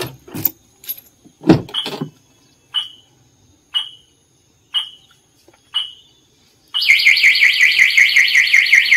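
Mahindra Scorpio S10's anti-theft alarm set off by opening the remote-locked door with a key. First come a few clunks from the door lock and latch, then five short high beeps about a second apart. About seven seconds in, a loud, fast-warbling siren starts.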